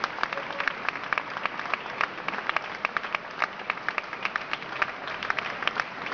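Audience applauding: a dense, irregular run of sharp claps.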